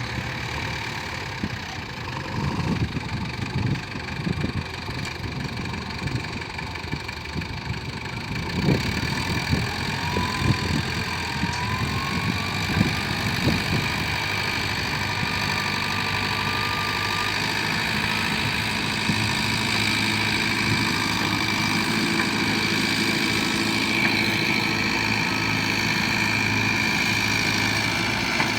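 Engine of a Tata JD315V running steadily after a transmission repair, with a steady high whine over it. Irregular knocks and clatter come through in the first half, and a rising whine comes in about ten seconds in.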